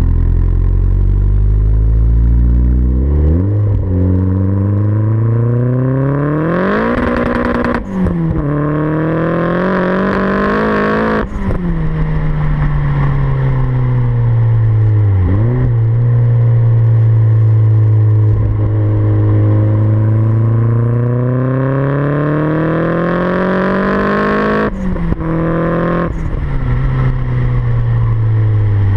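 Turbocharged Renault 9's F7R four-cylinder engine through a 3-inch exhaust, accelerating. The engine note climbs steadily and drops sharply at gear changes three times, about eight, eleven and twenty-five seconds in.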